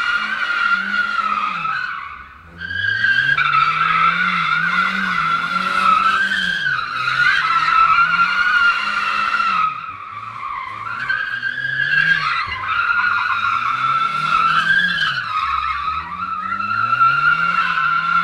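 Car drifting: a long, continuous tyre squeal with the engine revving up and down underneath it over and over. The squeal and engine briefly die away about two and a half seconds in, then start again.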